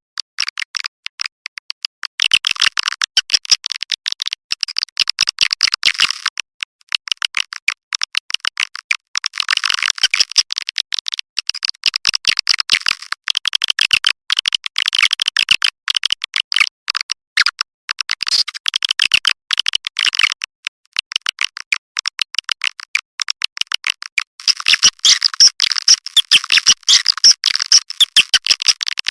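Edible-nest swiftlet call-in lure recording: dense, rapid twittering chirps from many swiftlets, in bursts with brief gaps, with nothing heard below the chirps.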